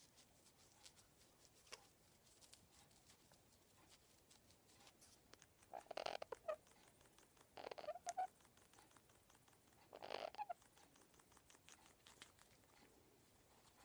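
Pionus parrot wheezing: three short, raspy breath sounds of about half a second each, a couple of seconds apart, in the middle of an otherwise faint stretch.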